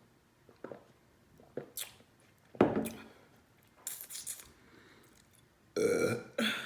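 Close-up eating sounds of crab legs and seafood boil: scattered wet smacks, sucks and clicks. Two louder bursts come about two and a half and about six seconds in.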